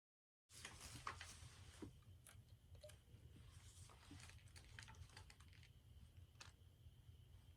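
Faint scattered clicks and light rustling, like something small being handled, over a steady low hum. The sound cuts in suddenly about half a second in, out of dead silence.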